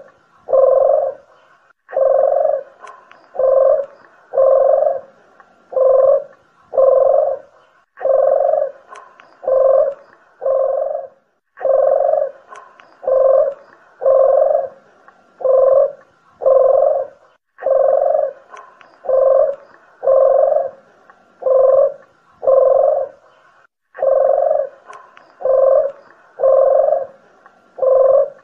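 Lure recording of doves cooing, puter geni (ringneck dove) and Sunda collared dove (deruk jawa): low, hoarse coos in repeated phrases of several notes, with a new phrase starting about every six seconds.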